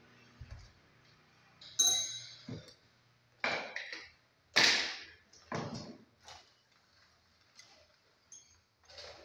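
Hand tools at work on a masonry wall: about seven or eight irregular knocks and metallic clinks. The first, about two seconds in, rings like struck metal.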